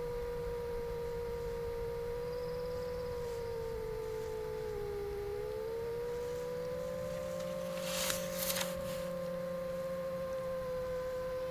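Motors and propellers of an 8-inch long-range FPV quadcopter droning at a steady pitch, dipping about halfway through and rising again as the throttle changes, over a low hum. A brief crackle comes about two-thirds of the way in.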